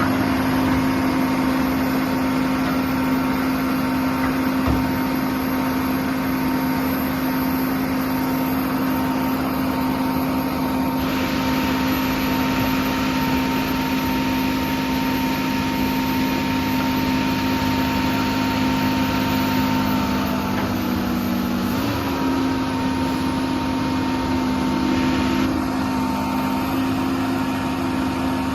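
Sierra RB5000 portable baler/logger's power unit and hydraulic pumps running steadily, a low hum with a higher whine over it. About 21 seconds in the pitch briefly sags and recovers as load comes on. A hiss is louder from about 11 to 25 seconds in.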